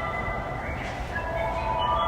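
Tokyu 3000-series electric motor car running: a steady low rumble of wheels on rail. The steady whine of the traction equipment fades away at the start, and a short gliding tone comes in about a second in.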